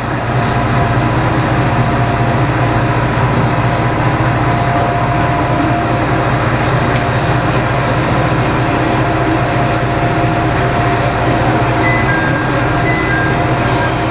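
Diesel engine of a Mizushima Rinkai Railway MRT300-series railcar idling steadily while the car stands at a station, heard from the driver's cab. A few short electronic beeps sound about two seconds before the end, and a hiss starts just after them.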